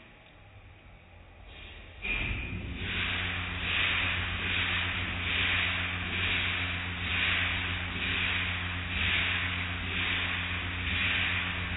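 Car wash overhead cloth-strip washer starting up about two seconds in: a steady motor hum under a rhythmic swishing of wet cloth strips and water, a little more than once a second.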